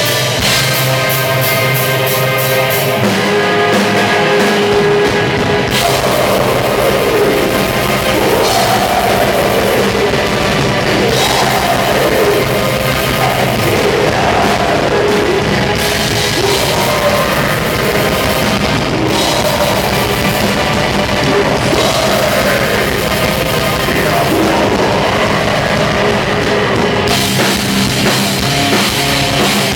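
Symphonic death/black metal band playing live: held keyboard chords open, and the drums and full band come in about three seconds in. From about six seconds on, harsh vocals are added over the band.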